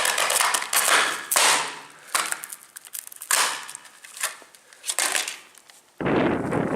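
Metal bat striking the pieces of a smashed phone: a run of sharp clicks and clattering knocks, with a louder crack about a second and a half in and a few scattered hits after. A sudden loud rumble starts near the end.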